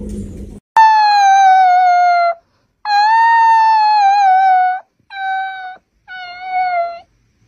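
A dog howling: four high, drawn-out howls with a slightly falling pitch, the first two long and the last two shorter.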